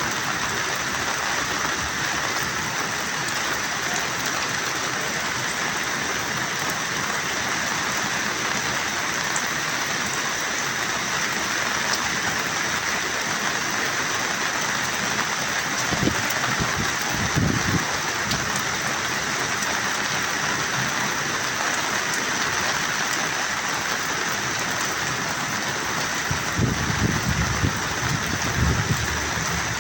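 Heavy rain falling steadily, a dense even hiss, with a few low thumps about 16 seconds in and again near the end.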